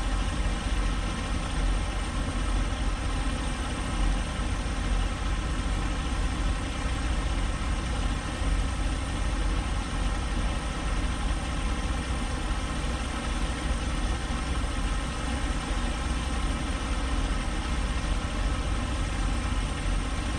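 Semi-truck's diesel engine running steadily at low revs, heard from inside the cab as the truck creeps through a parking lot.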